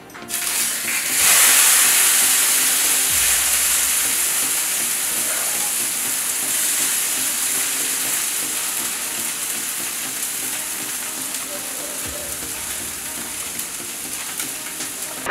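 Burger buns sizzling as they toast cut side down on a hot griddle. The sizzle starts suddenly, grows louder about a second in, and then slowly dies down.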